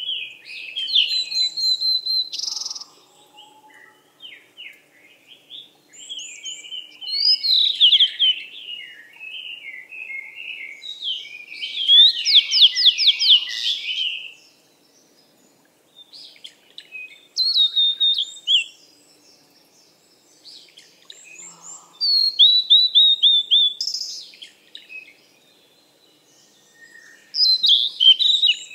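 Songbirds singing: phrases of high chirps, slurred notes and fast trills, separated by short pauses.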